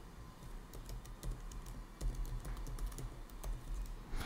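Typing on a computer keyboard: an irregular run of faint keystroke clicks.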